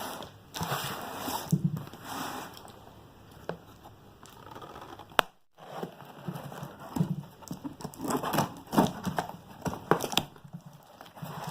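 A parcel of packaged goods being handled and unpacked: irregular rustling and crinkling of packaging with scattered clicks and taps, broken by a moment of silence about five seconds in.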